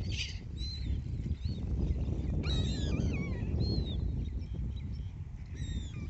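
Waterbirds calling: a few short high calls early on, then a burst of harsh, swooping calls about two and a half seconds in and another near the end, over a steady low rumble.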